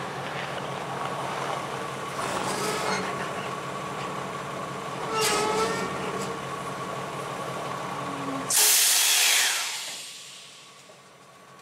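Freight train rumbling along the rails, with a brief wheel squeal about five seconds in. About eight and a half seconds in, a sudden loud hiss breaks out and fades away over a second or so, leaving it much quieter.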